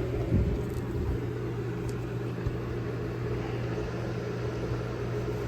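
A steady machine hum with a low droning tone and even noise over it, and a couple of faint knocks.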